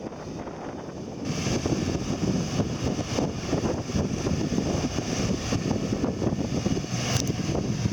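Off-road vehicle running while driving, a steady rough engine and ground rumble that gets louder about a second in.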